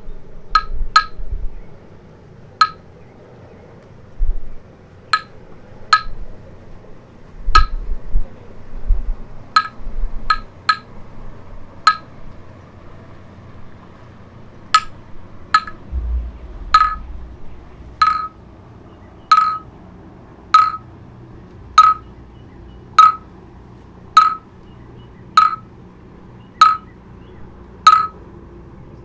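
Short glassy clinks at one pitch, each ringing briefly. They come scattered at first, pause, then settle into a steady beat of about one every second and a quarter.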